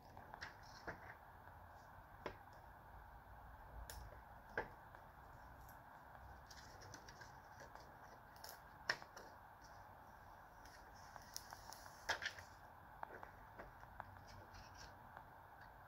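Faint, scattered clicks and crinkles of a thin clear plastic screen-protector film being handled and its backing tabs peeled, with a brief rustle a little before twelve seconds in, over quiet room tone.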